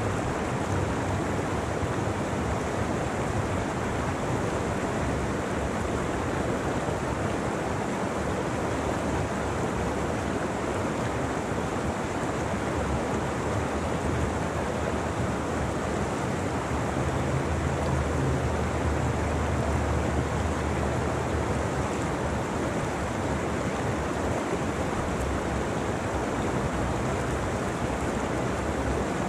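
Mountain creek rushing over rocks in whitewater rapids close to the microphone, a steady, unbroken rush of water.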